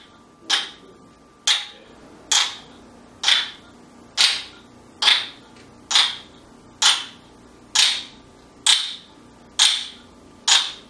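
Wooden kendama ball clacking onto the ken, about one sharp clack every second, around a dozen in a row: each clack is one catch in a long, counted run of the same trick.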